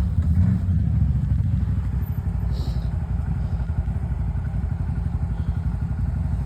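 A large-displacement ATV (quad bike) engine running steadily at an even pitch.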